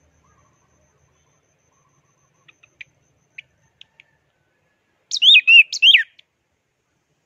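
Orange-headed thrush (anis merah) singing: a few faint short chips, then a loud phrase of warbling, gliding whistled notes a little after five seconds in.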